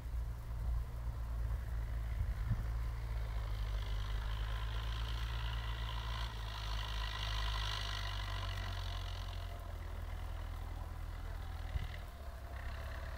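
Tractor diesel engine running steadily with a low drone. A higher hiss builds in the middle and drops away about nine and a half seconds in.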